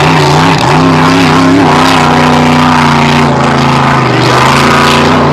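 Grand Prix hydroplane's V8 engine running flat out at racing speed. Its pitch wobbles up and down and settles slightly lower about three seconds in.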